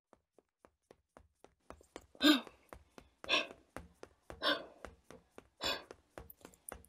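A woman running: quick footsteps that speed up, with loud panting gasps about once a second from about two seconds in.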